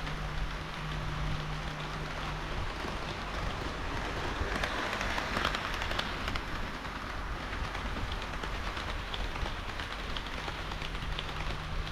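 HO-scale model train of KiHa 40 and KiHa 58 railcars running on the layout's track: a steady rushing rattle of wheels on rail, with light ticks at the rail joints and a low hum.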